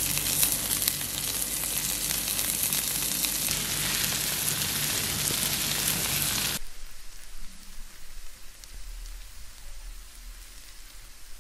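Pekasam (fermented fish) frying in hot oil with onions and chillies: a loud, dense sizzle full of fine crackles. About six and a half seconds in it cuts off abruptly, leaving a much fainter, sparse crackle.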